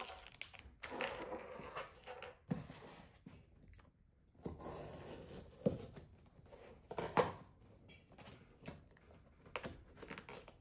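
Scissors cutting along the taped seam of a cardboard wrapper, then the cardboard and tape tearing and crinkling as the package is pulled open by hand, with a few sharper snaps a little past halfway.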